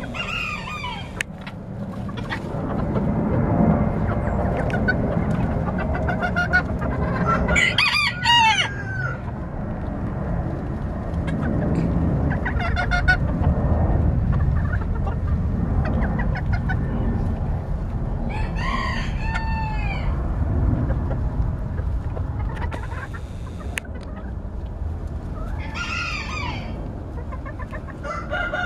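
Mille Fleur d'Uccle bantam chickens clucking, with a bantam rooster crowing several times over a steady low rumble.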